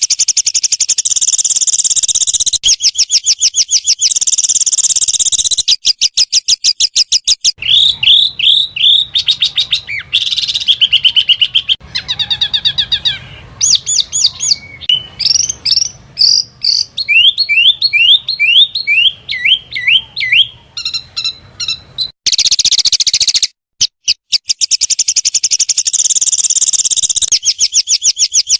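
Small songbirds singing a loud, rapid-fire burst song: fast high trills of many notes a second, with a middle stretch of varied rising and falling whistled notes before the rapid trills return near the end.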